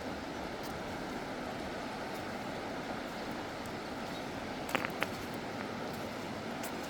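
Steady rush of the Klamath River flowing, with a couple of brief high chirps about five seconds in.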